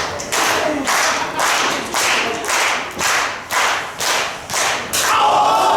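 Wrestling crowd clapping together in a steady rhythm, about two claps a second. Near the end it gives way to a swell of shouting and cheering.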